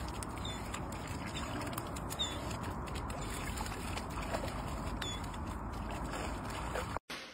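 Pond water sloshing and splashing as wet dogs wade out onto a muddy bank, over a steady rushing noise.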